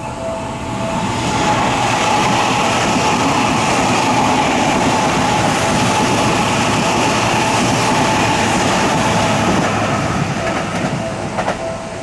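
Seibu Ikebukuro Line electric train running past at speed, a loud rush of wheels on rail that swells about a second in and eases off near the end. Under it the level crossing's electronic warning bell keeps ringing, coming through clearly again as the train clears.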